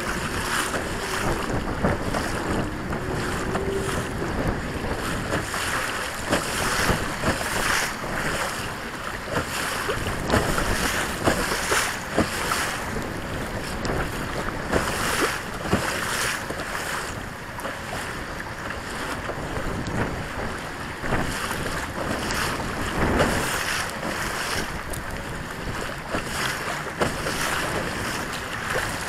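Wind buffeting the microphone while choppy waves slap and splash against a plastic Hobie pedal kayak's hull, with frequent irregular sharp slaps.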